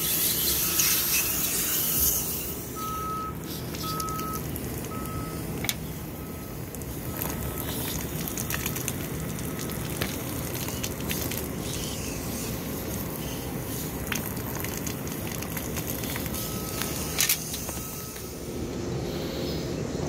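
Hose water rinsing the dirty evaporator coil of an old Carrier rooftop package unit, with the rinse water pouring out of the unit and splashing onto the wet roof: a steady hiss and splash. A faint beep repeats about once a second for the first ten seconds and again near the end, with a few sharp clicks.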